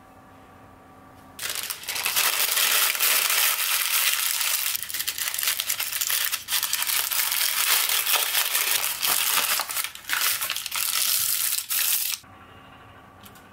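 A sheet of baking paper being crumpled and scrunched by hand: a loud, dense crinkling that starts about a second and a half in, dips briefly a few times, and stops sharply near the end.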